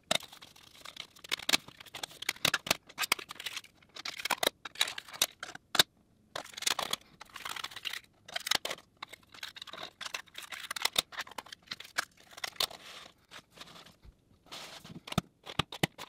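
Plastic cassette cases and CD jewel cases being handled, closed and stacked, with paper inserts rustling as they are folded back in: a busy run of irregular clicks, taps and crinkles.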